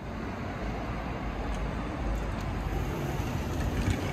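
Road traffic noise: a steady low rumble of passing vehicles that grows louder over the first couple of seconds.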